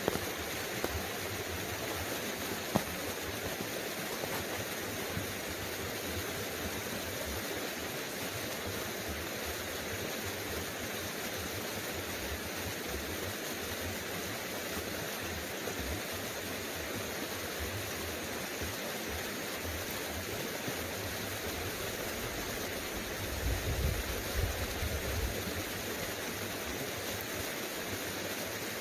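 Small creek's water running steadily. A low rumble rises for about two seconds near the end.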